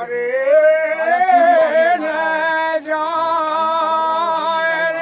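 A man singing long, high, drawn-out notes with a slightly wavering pitch, without drums: the slow opening line of a Bundeli rai khayal song.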